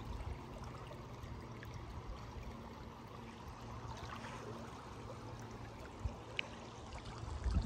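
Shallow river running over a gravel bed: a faint, steady rush of flowing water, with a couple of soft knocks about six seconds in.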